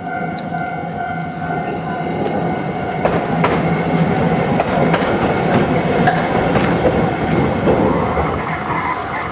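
Hankai Tramway streetcar running over a level crossing, louder from about three seconds in, its wheels clacking over the rail joints. The crossing's warning bell rings underneath.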